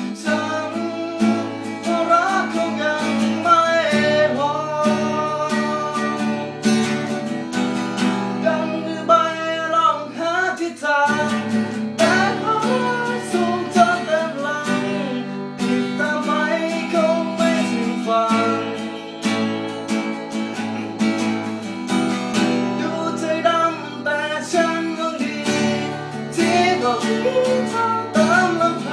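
A song on acoustic guitar, strummed chords under a sung melody.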